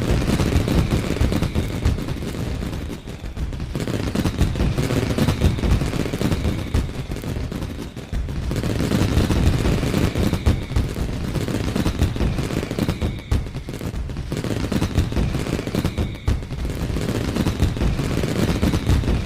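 Fireworks going off in rapid succession: a dense, continuous crackle of bangs, with loud surges every few seconds.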